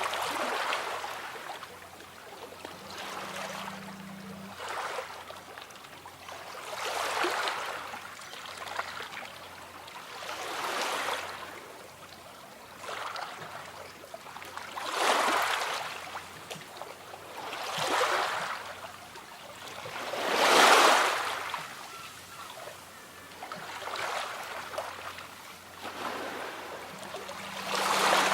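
Small sea waves washing onto the shore and drawing back, one swell every three to four seconds, with the loudest wave about two-thirds of the way through.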